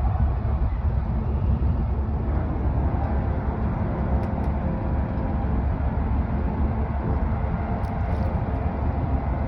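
Ferry's engines running during berthing: a steady low rumble with a faint steady hum over it.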